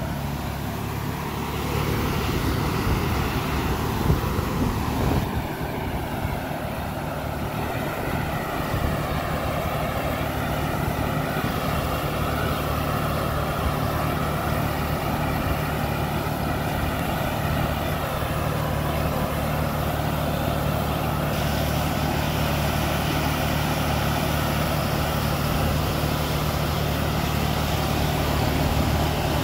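Kubota NeoStar B2441 compact tractor's three-cylinder diesel engine running steadily under load, mixed with the steady rush of air from the PTO-driven fan of its towed air-blast sprayer while it is spraying.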